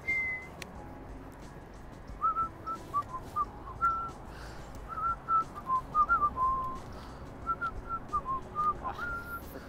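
A person whistling a tune: a run of short notes, some sliding up or down, starting about two seconds in.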